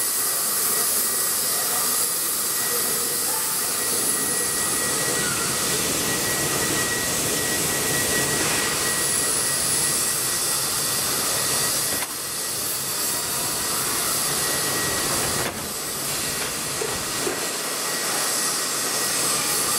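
NSW 59 class steam locomotive 5917 standing at the platform, hissing steam steadily, with a thin steady whine over the hiss. The sound dips suddenly in level twice in the second half.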